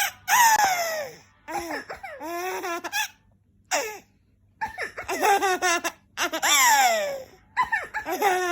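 A baby laughing in high-pitched squealing bouts, each sliding down in pitch, about six bouts with short pauses between them.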